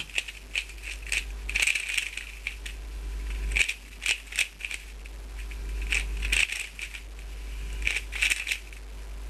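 Dayan GuHong 3x3 speedcube being turned fast during a timed solve. Its plastic layers make irregular bursts of rapid clicking and clacking, with short pauses between them.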